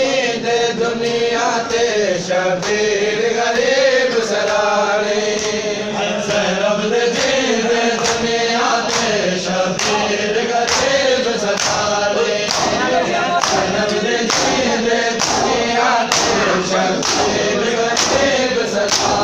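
Men chanting a Punjabi noha (Shia lament) together in unison, over the rhythmic thumps of matam, hands beating on bare chests, about one and a half beats a second.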